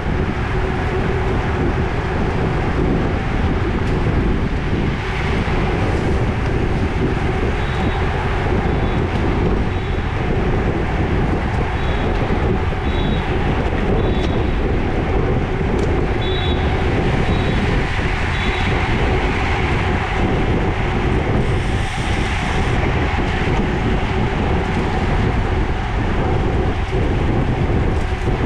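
Steady wind rush buffeting the microphone of a camera mounted on a road bike, mixed with tyre and road noise, as it rides in a racing pack at about 20 mph. A few faint short high-pitched double chirps sound in the middle stretch.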